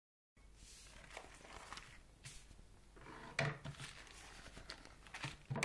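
Plastic mailing bag rustling and crinkling as it is handled and opened on a wooden table. There are two louder bumps, about halfway through and near the end.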